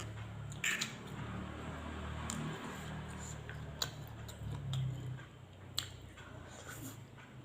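Close-miked eating of fried rice vermicelli: soft chewing and squishy mouth sounds, with a few sharp clicks of cutlery against a plate, over a low steady hum.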